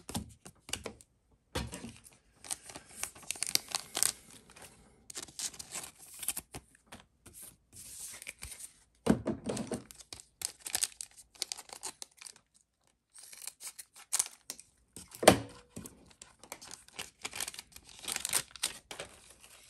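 Trading card booster pack wrapper being torn open and crinkled, in a run of short irregular rips and rustles with brief pauses between them.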